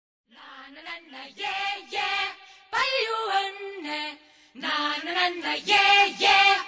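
A high voice singing a song melody in short phrases, with little audible accompaniment; it comes in about a third of a second in and pauses briefly just before the four-and-a-half-second mark.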